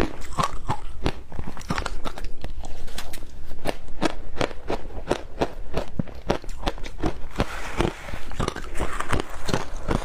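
Ice being bitten and crunched between the teeth close to the microphone: a rapid, continuous run of sharp cracks and crunches, several a second.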